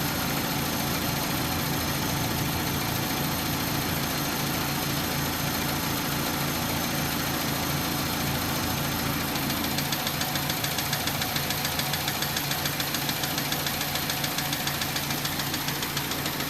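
2004 Hyundai Tiburon's 2.0-litre four-cylinder engine idling. About halfway through, a fast, regular ticking sets in over the idle. This is the intermittent tick that stops and comes back, which the owner suspects is a bearing.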